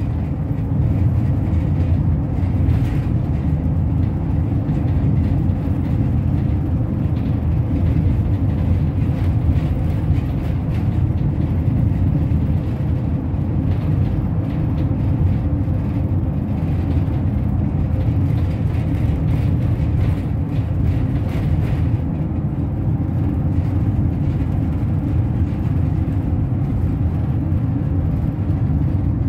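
Steady low rumble of a moving road vehicle heard from inside the cabin: engine and road noise with no breaks.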